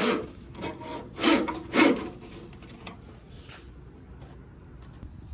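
Corrugated plastic split wire loom scraping and rasping in about five quick rubbing strokes as it is worked along a bundle of wires, loudest about a second and two seconds in, then dying down to faint handling sounds.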